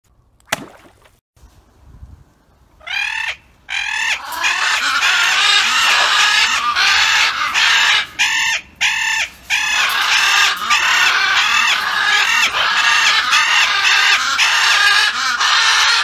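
Blue-headed macaws (Coulon's macaws) calling loudly, a fast, almost unbroken string of harsh screeching calls, two or three a second, starting about three seconds in. A single sharp click comes near the start.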